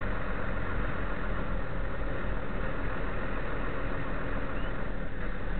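Steady engine and road noise of a car on the move, with no impact or horn standing out.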